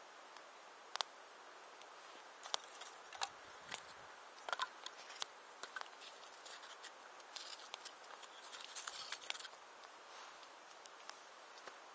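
Wood campfire crackling faintly, with irregular sharp pops and a busier run of crackles a little past the middle.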